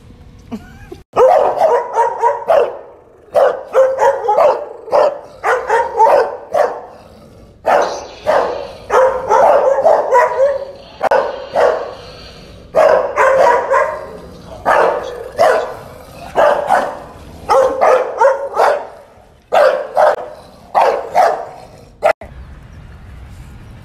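A bulldog barking over and over at a toy Yoda figure, in quick runs of barks with short pauses between them. The barking starts abruptly about a second in and cuts off suddenly near the end.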